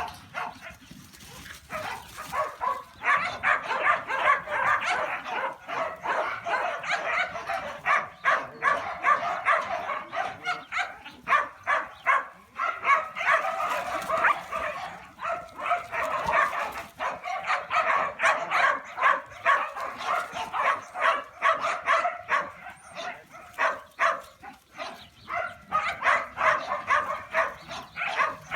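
Dogs barking almost continuously, several barks a second, after a quieter first couple of seconds.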